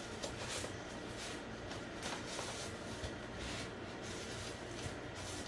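Soft, irregular rustling and scraping of dry breadcrumbs as an egg-coated chicken fillet is pressed and turned in them to bread it, over a low steady hum.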